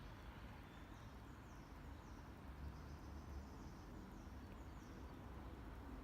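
Faint birds chirping, a string of short, high, falling notes repeated every second or so over a steady low outdoor rumble.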